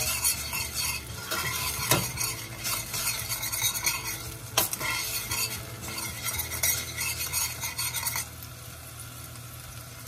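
A large metal spoon stirring a thin garlic-and-chicken-broth sauce base in a stainless steel saucepan, with sharp clinks of the spoon against the pot over the sizzle of the hot liquid. The stirring stops about eight seconds in, leaving a quieter steady sizzle.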